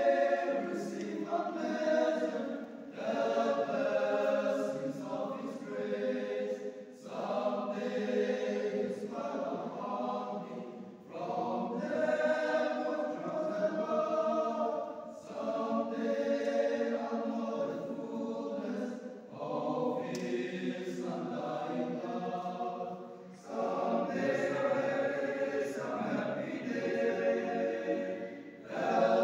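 Men's choir singing a hymn-like song without instruments, in phrases of a few seconds, each ending with a short pause for breath.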